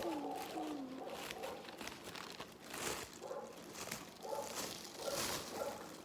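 Paper crinkling and rustling in short strokes as the taped paper squishy is handled, with faint pitched sounds in the background.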